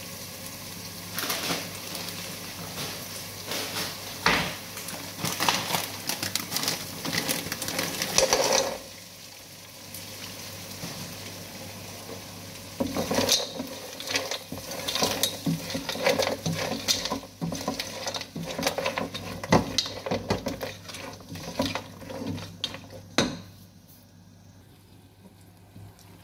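Silicone spatula scraping and knocking against a nonstick pot while broad beans are stirred, in two spells of clatter with a short pause between. A low steady hum runs underneath.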